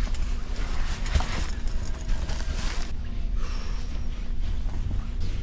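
Clothing and jacket fabric rustling close to the microphone, loudest in the first half, over the steady low rumble and hum of a passenger rail car.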